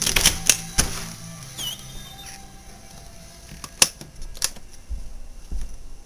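Handling noise from a handheld camera being carried: a quick cluster of clicks and knocks in the first second, then a few sharp clicks near the four-second mark.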